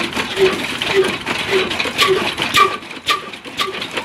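Belt-driven chaff cutter chopping green fodder stalks as they are fed in, turned by an old diesel engine through a line shaft. A regular beat about twice a second, with sharp chopping clicks about halfway through.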